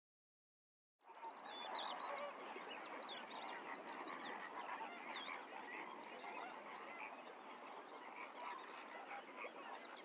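A large flock of birds calling, many overlapping chirps and honking calls, starting about a second in after silence.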